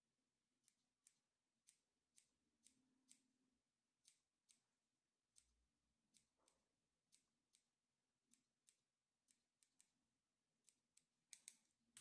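Small grooming scissors snipping a Yorkshire terrier's hair close to the eye: faint, quick snips about two a second, bunching together near the end.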